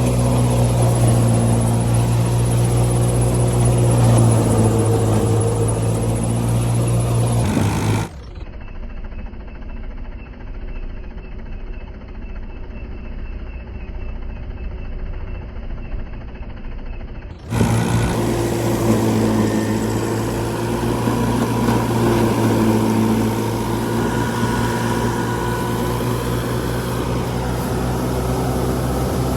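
Old combine harvester's diesel engine running steadily under load. It turns quieter and muffled from about eight seconds in, then comes back at full strength about ten seconds later.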